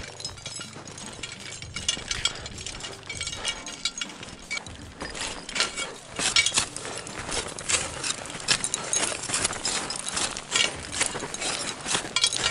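Rapid, irregular clinking and crunching from a climber rappelling down a steep snow slope: metal climbing hardware jingling and steps crunching into the snow. The sounds thicken about halfway through.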